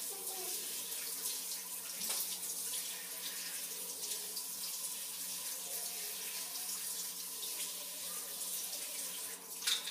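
Handheld shower spray running steadily onto a head and a tiled floor, water splashing as hair dye is rinsed out; the water cuts off just before the end.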